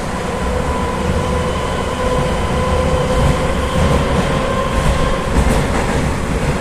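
Rusich articulated metro train running: a loud low rumble from the wheels and car, with a steady whine from the traction drive that fades out about five seconds in.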